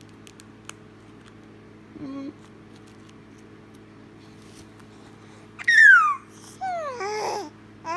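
Baby babbling in reply. First a short low coo, about two seconds in. Then, near six seconds, a loud high squeal sliding down in pitch, followed by a longer wavering sound that also falls in pitch.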